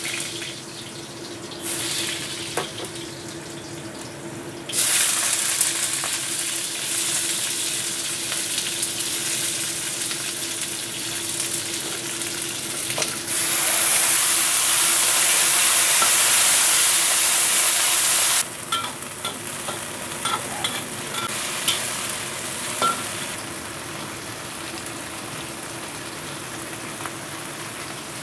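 Garlic sizzling in hot oil in a wok. About five seconds in the sizzle jumps louder as yard-long beans go in and are stir-fried with a spatula, and it is loudest for about five seconds from around thirteen seconds in. It then settles to a quieter sizzle with light clicks of the spatula, over a faint steady hum.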